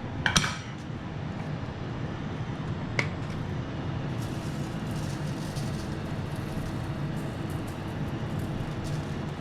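Steady whirring hum of a kitchen appliance fan, with a couple of sharp clicks near the start and faint light ticking in the second half.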